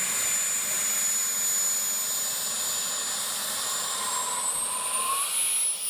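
A CARF Mephisto radio-controlled jet's model gas turbine running at taxi power, a steady high whine over a rushing hiss. The whine rises in pitch about four seconds in.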